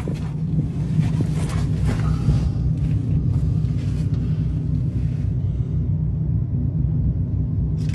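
Steady low rumble of an idling truck engine. Over the first five seconds or so, irregular scraping and hissing noises from the tire-plug tool being worked into the puncture, which then stop.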